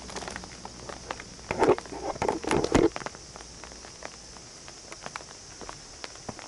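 Footsteps of a person walking, a string of short steps over a steady high hiss, with a louder burst of scuffing and knocks about two seconds in.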